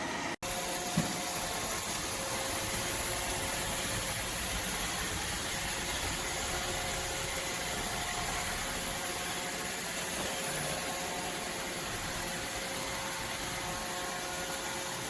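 Robot vacuum running, a steady whirring noise with a faint hum. There is a single click about a second in.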